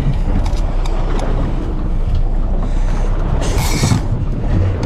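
Wind buffeting the microphone over the steady rumble and water noise of a fishing boat under way at sea, with a brief hiss a little past three seconds in.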